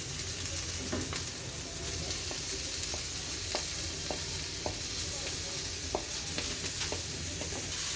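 Chopped capsicum and carrot sizzling in hot oil in a pan, with the short clicks of a spoon knocking against the pan as it is stirred.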